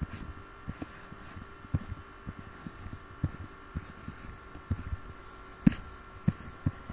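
Soft, irregular low taps and knocks, a few a second, with a louder one near the end, over a steady faint electrical hum.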